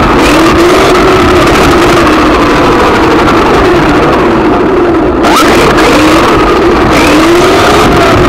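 1:10 scale RC buggy driving hard, heard from a camera mounted on the car itself: its motor's pitch rises and falls again and again with the throttle over loud, rough running noise. About five seconds in, the high end drops away briefly before a quick rise in pitch.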